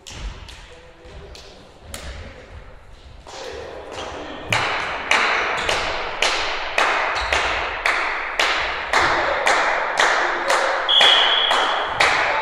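A few scattered thumps, then from about four seconds in a steady run of sharp beats, about two to three a second, echoing through a large sports hall. Near the end comes a short whistle blast.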